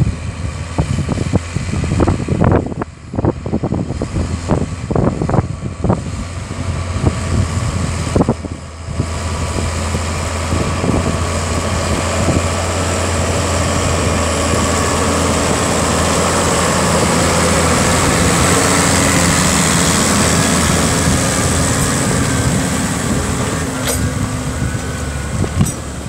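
Massey Ferguson 6480 tractor engine running under load while pulling a five-furrow reversible plough, growing steadily louder from about ten seconds in as it comes close and passes, then easing off near the end. Gusts of wind buffet the microphone during the first several seconds.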